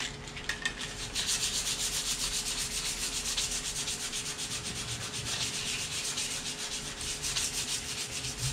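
Steel chainsaw bar being hand-sanded with an abrasive pad in quick, even back-and-forth strokes, scrubbing surface rust off the bar.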